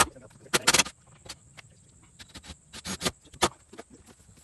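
Sharp knocks and short clattering bursts from work on the wooden frame of an outhouse being assembled: a dense cluster about half a second in, another near three seconds, and single knocks between.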